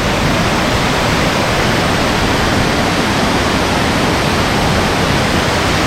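Waterfall cascading over a rock face into pools: a loud, steady rush of falling water.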